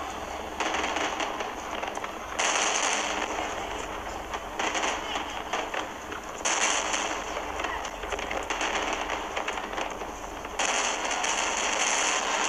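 Fireworks display: a dense, continuous crackling of many small bursts, stepping louder and quieter several times.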